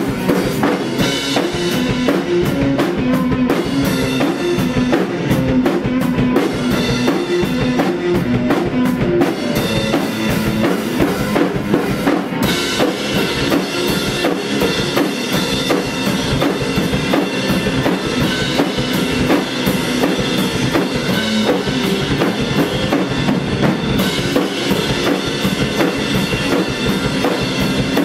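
Live garage rock band playing an instrumental passage: distorted electric guitar over two drum kits played at once, with a steady driving beat of bass drum and snare. The cymbals get brighter about twelve seconds in.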